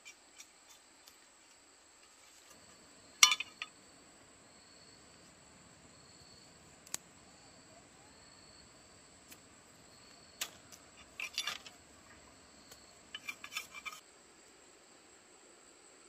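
A knife working thin bamboo strips, giving sharp clicks and cracks: the loudest about three seconds in, single ones scattered after, and quick runs of clicks near the end. Insects trill steadily at a high pitch behind them.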